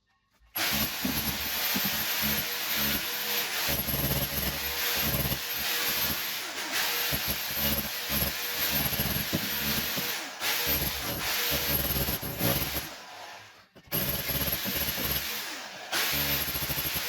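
Electric chipping hammer chiselling old ceramic tiles off a wall, a rapid hammering with a steady motor whine. It starts about half a second in and stops for about a second near the end before starting again.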